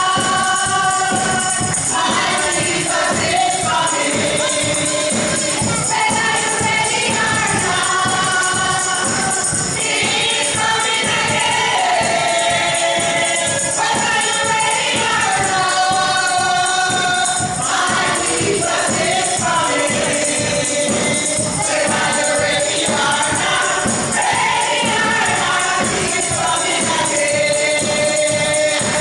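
A small group of women singing together in harmony, with a hand-held tambourine jingling in a steady rhythm under the voices.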